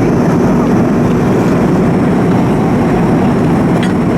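Steady cabin roar of a Boeing 737-200 in flight during its initial descent: the noise of its Pratt & Whitney JT8D turbofans and the airflow, deep and even, with a faint high whine over it.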